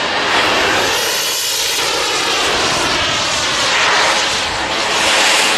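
Radio-controlled model jet's turbine engine running in flight, a loud rushing whine whose pitch sweeps up and back down as the jet turns and passes.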